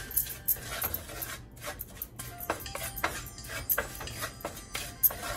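Wooden spatula scraping and stirring a thick chilli-spice paste around a heavy black pot, in quick irregular strokes a few times a second.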